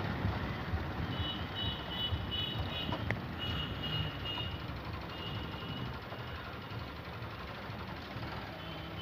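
Motorcycle riding along a rough road, its engine and road noise running low and steady. Over it come short runs of high electronic beeping, about three beeps a second, that stop about halfway through.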